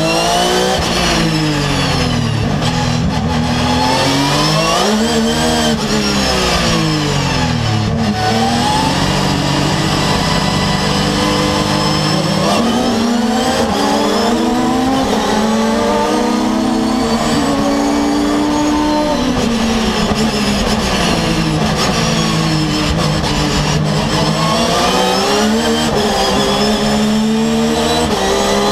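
Porsche 911 GT3 R race car's flat-six engine heard from inside the cockpit at racing speed, its pitch climbing through the gears and dropping sharply several times on downshifts.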